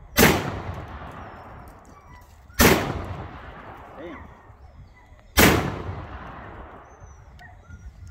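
Three shots from a TriStar magazine-fed, AR-style shotgun, about two and a half seconds apart, each a sharp blast followed by a long echo dying away.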